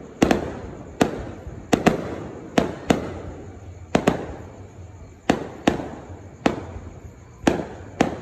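Aerial fireworks bursting overhead: about a dozen sharp bangs, roughly one every half second to second, some in quick pairs, each followed by a short fading tail.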